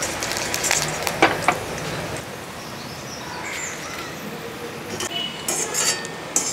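Wire spider strainer clinking and scraping against a metal kadai and a plate as fried garlic, ginger and curry leaves are scooped out of the oil. There are a few sharp clinks about a second in and another cluster near the end, with a faint hiss between.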